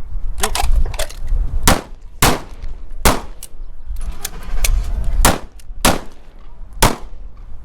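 Gunshots fired in a quick string at a shooting range: about six loud, sharp reports, irregularly spaced with a gap of about two seconds in the middle, among several fainter shots.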